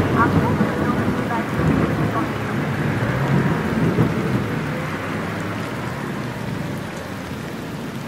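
Thunder rolling over steady rain: it breaks in suddenly loud, then a low rumble slowly fades.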